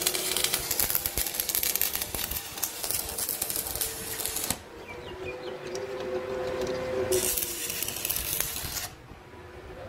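Stick-welding arc on a trolley wheel hub, crackling and sizzling steadily for about four and a half seconds and then stopping, leaving a steady hum from the BX1-500 AC arc welder; the crackle comes back for about two seconds near the end.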